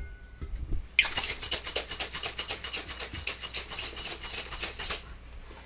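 A cocktail shaker shaken hard for about four seconds: a fast, even rattle that starts abruptly about a second in and stops cleanly near the end.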